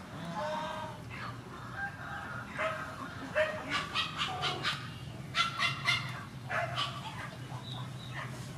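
Chickens clucking and cackling, with quick runs of short sharp calls in the middle, over a faint steady low hum.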